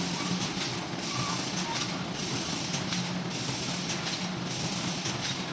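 Automatic mesh bag cutting and sewing machine running: a steady mechanical clatter over a low hum, with brighter swishes that recur at regular intervals.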